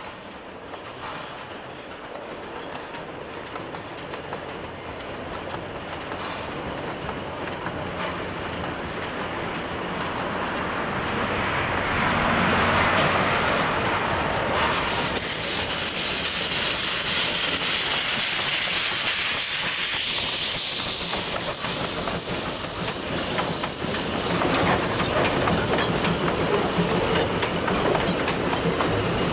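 Puffing Billy narrow-gauge steam locomotive approaching, its exhaust chuffing at about two beats a second and growing louder, then passing close with a strong hiss of steam about halfway through. Its carriages follow, rattling and clattering over the rail joints.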